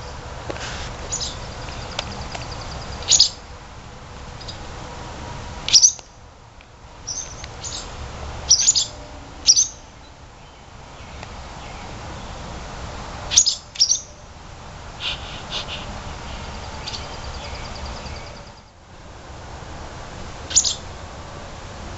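Barn swallows giving sharp, high alarm chirps every few seconds, some in quick pairs, with short stretches of twittering between them: the swallows scolding while they defend their nest.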